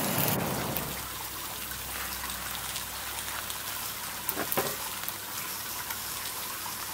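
Eggs sizzling on the hot enamel-coated griddle plate of a Weber Q gas grill: a steady fine crackle and spitting, with a couple of louder pops about four and a half seconds in.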